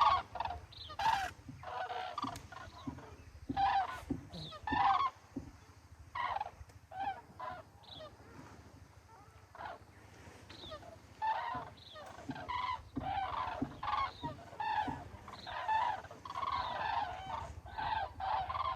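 Common cranes calling repeatedly, short honking calls coming in clusters: sparse through the middle, then many overlapping calls in the second half.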